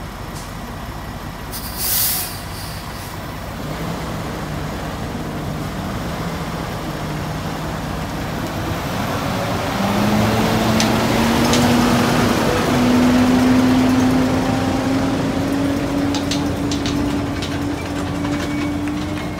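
Peterbilt semi-truck: a short hiss of air brakes about two seconds in, then its diesel engine pulls the loaded trailer forward with a drone that rises slowly in pitch and is loudest as the truck passes.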